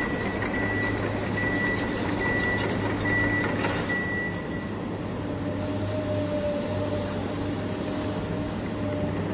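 Vehicle reversing beeper sounding a repeated high beep over a steady engine-like hum. The beeping stops about halfway, and a steady lower tone carries on under the hum.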